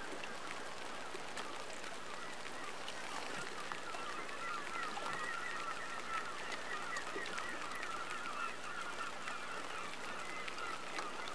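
A flock of birds calling in a continuous chatter of short, wavering calls, over a faint low steady hum.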